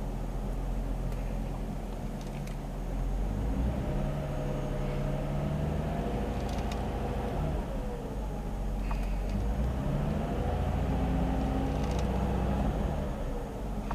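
Nissan Fairlady Z (Z33) engine revved twice without load, the revs climbing and holding for a few seconds, then falling back to idle each time. The revving is done to bring out a hiss like escaping air, which the owner reports when the steering is turned left as the revs drop and suspects is power-steering noise.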